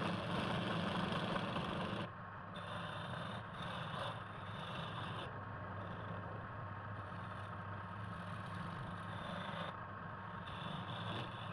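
Wood lathe running, with a turning tool cutting the spinning wood: a steady motor hum under a scraping hiss that is strongest for the first two seconds, then eases and comes and goes as the tool touches the wood.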